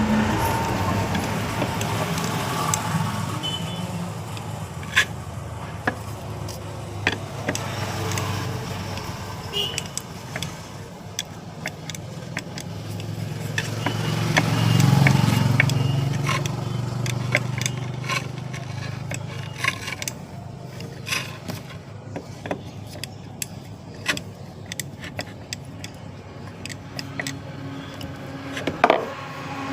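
Low traffic rumble with a vehicle passing about halfway through, over scattered small clicks and knocks of metal parts being handled.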